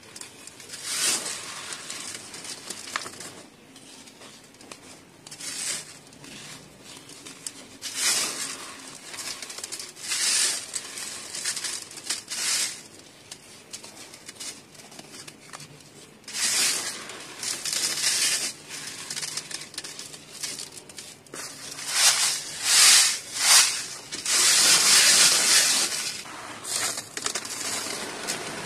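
Dry red dirt clumps crushed and rubbed by hand against a wire-mesh sieve: irregular gritty crunching and rustling that comes in short bursts a second or two apart. Near the end a few sharper crunches, then a longer run of steady sifting.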